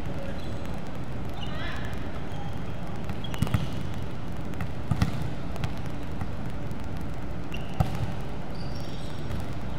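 Volleyball being played in a large gym hall: a few sharp smacks of the ball, two close together about three and a half seconds in, two more about five seconds in, and a single one near eight seconds, over steady background noise.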